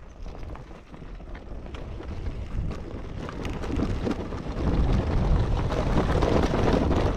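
Enduro motorcycle riding over a rocky ridge trail, heard from a helmet camera as engine noise mixed with wind buffeting on the microphone and scattered clicks of stones. It grows louder about four seconds in.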